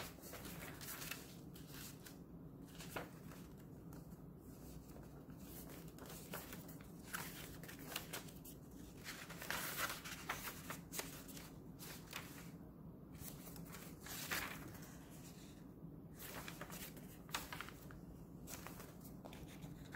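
Paper pages and fabric flaps of a handmade junk journal being turned by hand: soft, irregular rustles and swishes, over a faint steady low hum.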